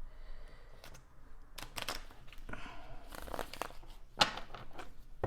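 Tarot cards being handled: a soft papery rustle with a few scattered clicks, the sharpest about four seconds in.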